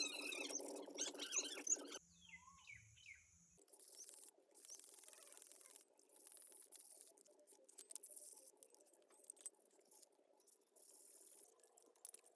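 Scouring sponge scrubbing wet, soapy steel car-jack parts: a scratchy rasp, loudest for the first two seconds. After a brief lull with a few short chirps, the scrubbing goes on more faintly in uneven strokes.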